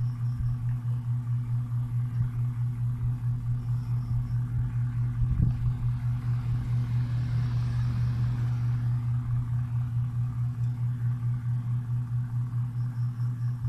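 Steady low mechanical hum that pulses evenly about four or five times a second, with a single light knock about five seconds in.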